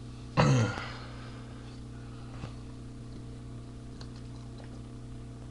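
A single short throaty vocal sound from a man, about half a second long and falling in pitch, then a steady low electrical hum.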